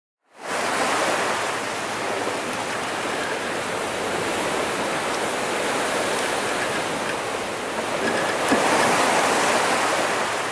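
Steady rushing of open-ocean waves, beginning after a moment of silence and swelling slightly about eight and a half seconds in.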